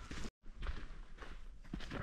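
A hiker's footsteps on a mountain trail at a steady walking pace, a step about every half second, broken by a split-second gap of total silence about a third of a second in.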